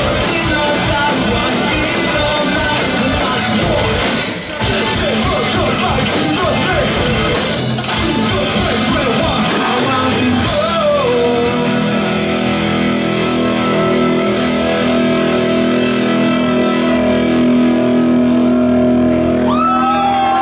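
Live rock band playing loud in a concert hall: drums and electric guitars. About halfway through, the drums stop and sustained guitar chords ring on.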